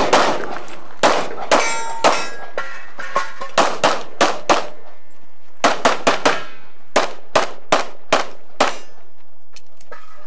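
Rapid pistol fire in quick strings, about twenty shots with short pauses between groups, some hits followed by the brief ring of steel targets.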